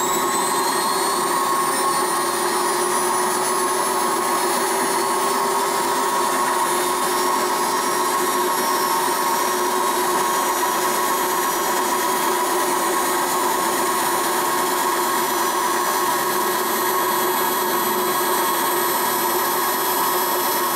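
A homemade metal lathe running, its three-jaw chuck spinning a steel bolt. It makes a steady mechanical whine with a high tone that climbs slightly over the first few seconds as it comes up to speed, then holds steady.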